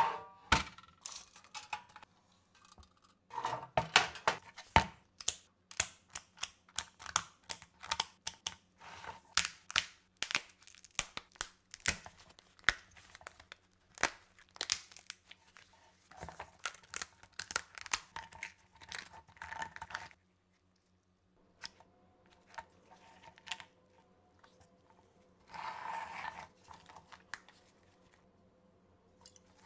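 Raw lobster tail shell being cracked and pried apart by hand: a long run of sharp cracks, snaps and crunches, then quieter handling with one short burst of noise near the end as the meat is worked loose.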